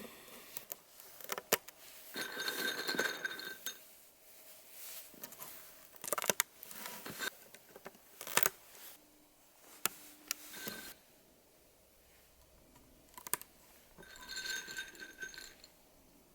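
Mechanical keyboard switches being handled and snapped into the plate and hot-swap PCB: scattered sharp clicks, and twice a short rattling jangle with a faint ring.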